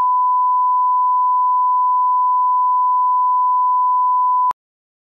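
Bars-and-tone test signal: one steady, pure beep that cuts off suddenly near the end.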